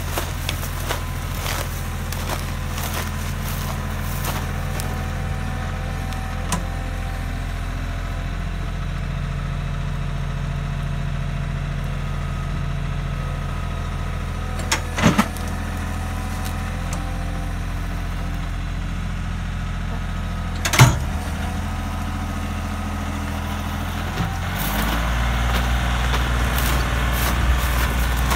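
Compact tractor engine running steadily under load as it tows a wooden shed by a chain, with two sharp knocks partway through. Near the end the engine speeds up and gets louder.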